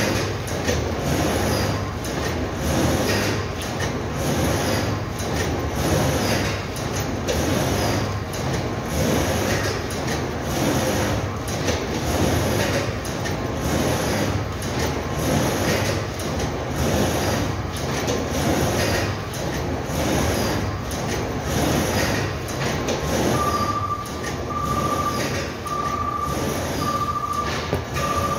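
Carton-factory machinery running steadily, a continuous mechanical clatter with a regular pulse. Near the end a high electronic beep starts repeating about once a second.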